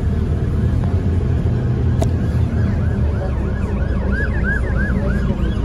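Ambulance siren sounding a rapid rising-and-falling yelp, about three cycles a second, coming in about halfway through and growing louder, heard from inside a bus over the bus's steady low engine rumble.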